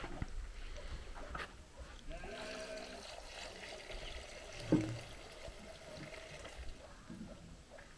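Water trickling as it is poured from a plastic jug into a goatskin water bag (mashk).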